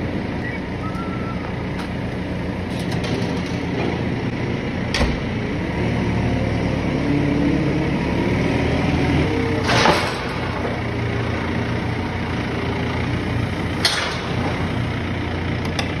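JCB Loadall telehandler's diesel engine running as it lifts and carries a round straw bale, the engine note changing as the boom works. A sharp knock about five seconds in, a short hiss around ten seconds, and another knock near fourteen seconds.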